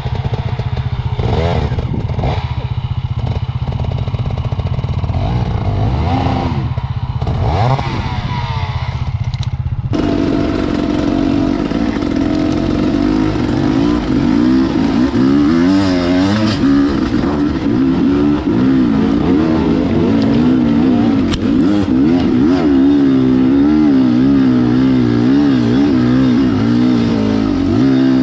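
Dirt bike engine revving up and down while being ridden off-road. About ten seconds in the sound changes abruptly to a steadier engine note whose pitch wavers slightly.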